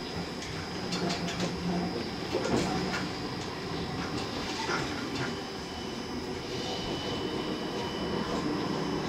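Tram running over a track junction, heard from inside the car: a steady rumble of the wheels on the rails with a high steady whine, and irregular clicks and knocks as the wheels cross the switches and rail joints, most of them in the first half.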